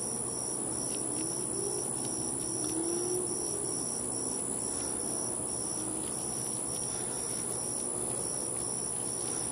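A cricket chirping steadily, about three short high chirps a second, over a constant high-pitched hiss.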